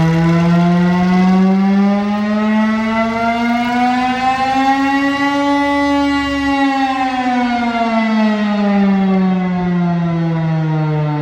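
Chrysler air raid siren, the final-generation model driven by a Chrysler Hemi engine, sounding a loud, low wail with many overtones. Its pitch climbs over about five seconds and then slides back down.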